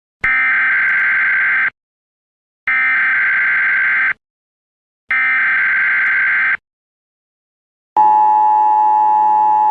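Emergency Alert System tones: three identical digital data bursts of the SAME header, each about a second and a half long with a second's gap between them, then about eight seconds in the steady two-tone EAS attention signal begins.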